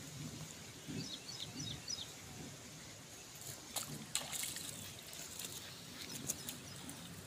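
Faint outdoor ambience: a few high chirps about a second in, and scattered sharp clicks and rustling around the middle and near the end.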